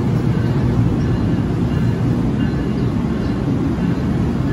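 NJ Transit MultiLevel bilevel passenger coaches rolling past on the rails, a steady low rumble of steel wheels on track.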